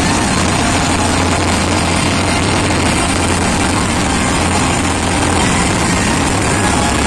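Dense fireworks barrage, many shells bursting and crackling together so closely that they merge into one loud, steady rumble.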